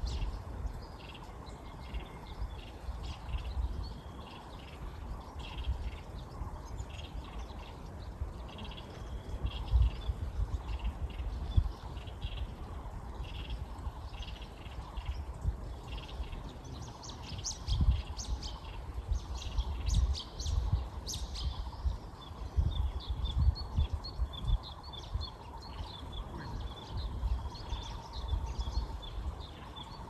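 Several wild birds chirping and calling in forest: short high chirps and trills that come thick and fast for a few seconds in the middle. Low rumbling bumps on the microphone come and go and are the loudest sounds.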